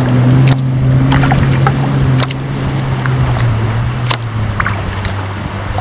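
Kayak paddle strokes, with water splashing and dripping off the blades in scattered sharp splashes, over a steady low hum.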